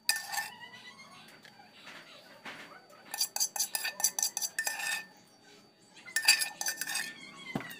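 A metal spoon scraping and clinking against dishes as rice is served onto a plate, in two spells of quick clinks: one about three seconds in and one about six seconds in.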